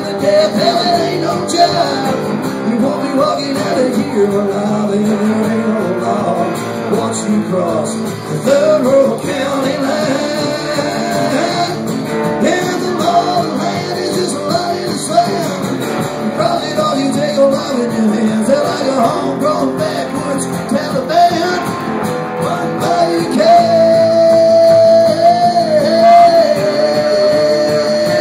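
Live country band playing an instrumental break: a lap steel guitar plays a sliding lead line over strummed acoustic guitar and plucked upright bass, ending on a long held steel note near the end.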